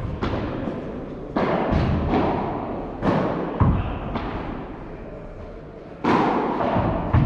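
A padel rally: the ball is struck with padel rackets and bounces on the court, about eight sharp hits at irregular intervals, each ringing out in the big hall.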